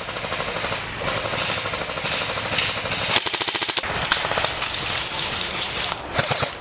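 Airsoft electric gun firing full auto in long, nearly unbroken bursts, a fast even mechanical rattle that stops shortly before the end.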